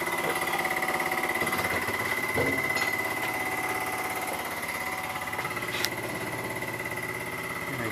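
A machine runs steadily with a fast, even pulse and a steady high whine, with a couple of short metallic clicks from tools being handled about two and a half and six seconds in.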